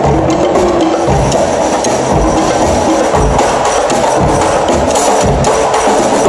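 Live percussion ensemble playing a busy rhythm on drums and cymbals, with sharp wood-block-like accents over a steady, repeating low drum beat.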